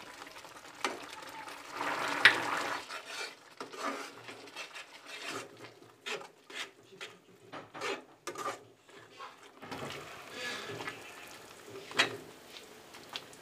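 Steel spatula scraping and clinking against a kadai as a thick mixture of grated beetroot in sugar syrup is stirred. Irregular strokes come quickly in the middle, with a sharp clank about two seconds in and again near the end.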